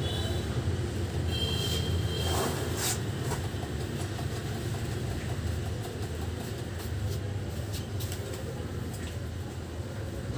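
A steady low rumble with a few light knocks, and a brief high squeak about one and a half seconds in.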